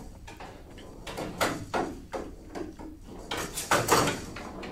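A showdown ball, whose hollow shell holds small metal pellets so it rattles, knocking against the wooden showdown table and the players' bats in a rally: a string of irregular sharp knocks, coming thicker in the second half.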